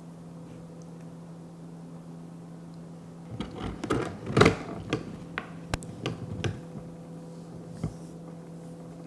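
A burst of clatters and knocks from kitchen things being handled, about three to six seconds in, over a steady low hum.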